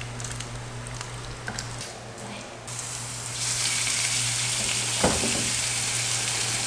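Bacon frying in a pan, its sizzle growing much louder about three seconds in. There are light clicks early on and a single knock around five seconds in.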